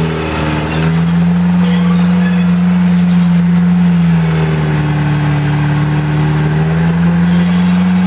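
Rock-crawler buggy's engine running under load as it climbs a rock ledge. The revs hold steady, drop from about four seconds in, and pick up again near the end.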